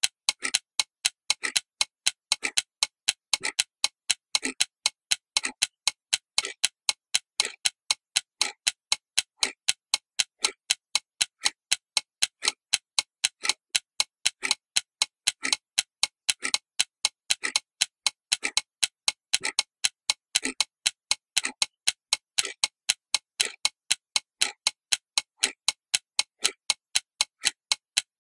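Steady clock ticking, about four even ticks a second with a heavier tick roughly once a second, keeping time like a metronome.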